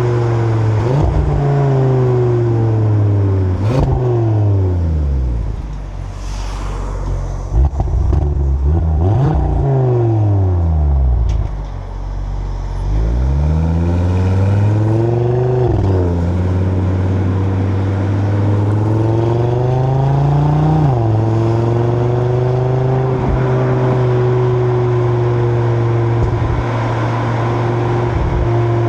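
Stock 2025 Audi RS3's turbocharged 2.5-litre five-cylinder engine and exhaust, heard from the rear of the car. The engine note falls, then climbs through the gears, with each upshift bringing a sudden drop in pitch, and it settles into a steady cruise for the last third.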